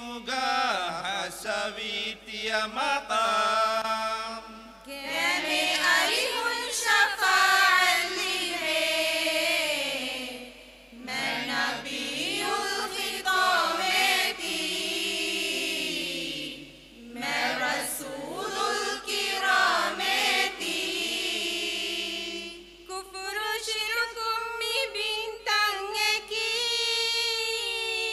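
A group of singers, mostly women, chanting a madhaha, a Dhivehi devotional song in praise of the Prophet, together and without instruments. The singing comes in long phrases with a short break about every six seconds.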